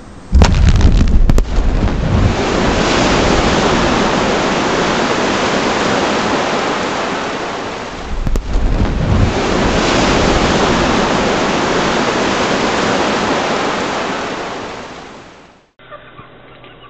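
Explosive charge detonating on a rocky, snow-covered slope: a sudden very loud bang, then a long rushing noise of the blast and falling rock and snow, with a second loud bang about eight seconds in. The noise fades away over the last couple of seconds.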